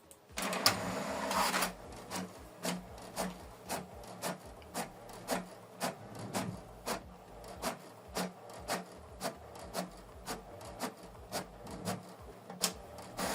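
HP Deskjet 4310 inkjet printer feeding a sheet from the rear paper tray and printing its second side. A rushing feed sound about half a second in is followed by a regular click about twice a second as the print carriage passes.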